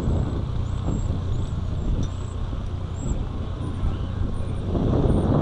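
Outdoor ambience with a steady low rumble that grows louder near the end, and a few faint, short high chirps.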